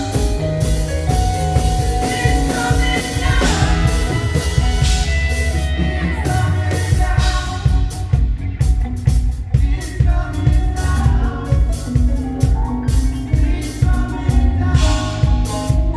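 A live band playing upbeat praise music, with a drum kit and bass and a voice singing. Drum hits get denser partway through.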